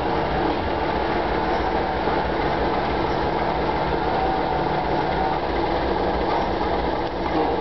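Diesel shunting locomotive running steadily while it moves a steam locomotive tender slowly along the track: a continuous engine rumble with the low sound of the rail vehicles rolling.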